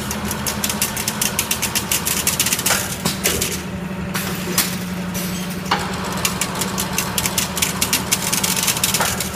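Semi-automatic chain-link fence weaving machine running: a steady hum under fast, continuous clattering, with a sharper clank every few seconds.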